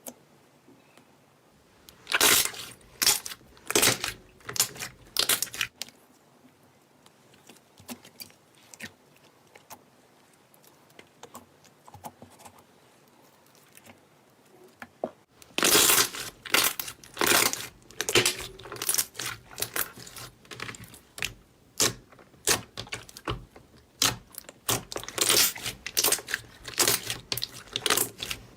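Slime being pressed and squeezed, giving irregular crackling and popping sounds, sparse at first, then quiet for several seconds, then dense crackling from about halfway.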